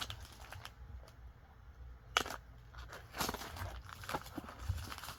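Faint rustling and clicking of packaging being handled and opened, with a sharp click about two seconds in and more rustles after it.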